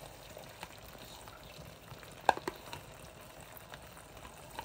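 Tomato sauce sizzling faintly in a cooking pan, with a single sharp knock a little over two seconds in and a few lighter clicks.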